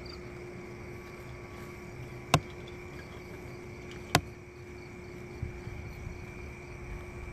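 Night crickets and other insects chirping and buzzing steadily, with two sharp clicks about two and four seconds in.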